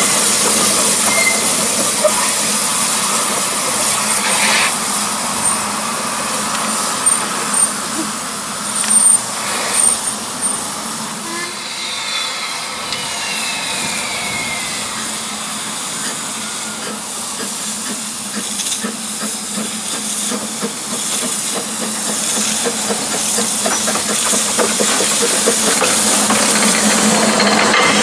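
Steam hissing steadily from an 1879 double Fairlie narrow-gauge steam locomotive, quieter in the middle, with a few metallic knocks about a third of the way in.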